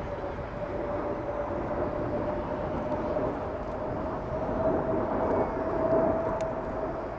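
A formation of Kawasaki T-4 jet trainers flying past, heard from the ground. The engines make a steady whine that rises slowly in pitch over a wide rumble.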